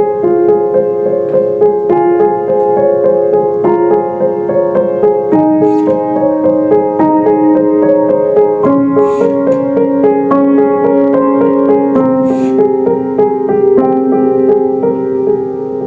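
Instrumental keyboard music: held chords with notes shifting every second or so.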